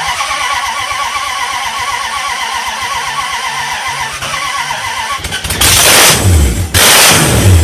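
Rat rod engine cranking on the starter, with a wavering starter whine, for about five seconds, then catching and running very loud through open, tack-welded headers with no collectors and no flange gaskets, the throttle blipped twice.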